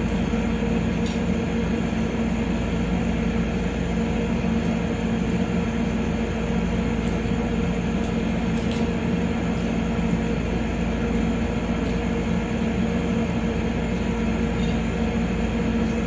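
Steady mechanical hum with a low droning tone that holds even throughout, with a few faint clicks over it.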